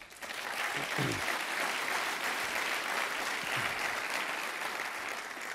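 Audience applauding: steady clapping that builds within the first half second, holds, and dies away near the end.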